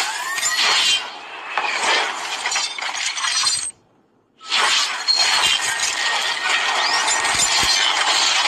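Sound effects of an animated video intro: a dense hissing, glassy noise with a few sliding tones through it, which cuts out for about a second in the middle and then comes back.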